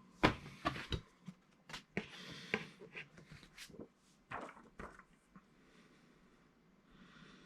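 Comic books being handled: a string of sharp taps and clicks with short bursts of rustling as issues are slid out and set down, dying away to faint hiss after about five seconds.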